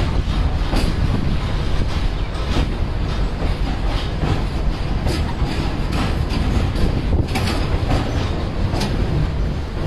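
Loud steady rumble with sharp clacks every second or two.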